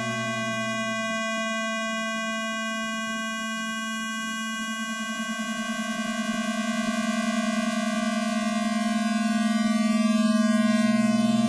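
Electronic square-wave tones sounding together as a steady, buzzy drone rich in overtones. A low tone drops out about a second in and comes back near the end, and a pulsing beat grows stronger through the second half.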